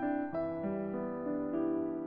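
Soft piano background music, a gentle melody moving note by note.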